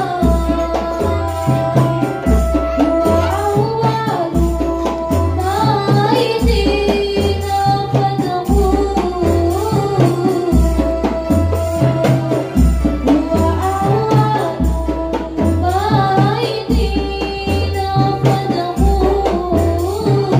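Rebana ensemble: boys beating hand frame drums in a steady interlocking rhythm, with deep drum strokes repeating in a cycle about every two seconds, under a girl singing the lead through a microphone.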